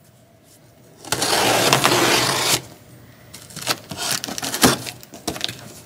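Cardboard shipping box being opened: a loud scraping rip of tape and cardboard about a second in, lasting about a second and a half, then several short knocks and taps as board books are handled and set down on a wooden table.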